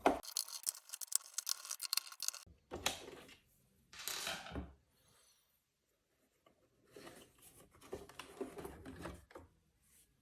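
Hands working on the plastic housing of a robot vacuum: a quick run of sharp clicks, then two short scraping noises, a pause, and scattered rustling and clicks.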